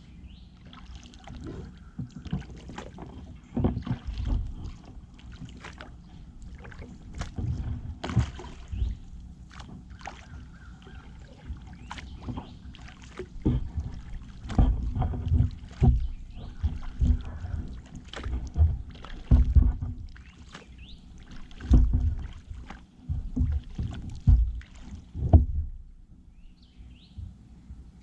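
Kayak being paddled: paddle strokes in the water with irregular low thumps and knocks, busier and louder in the second half and easing off near the end.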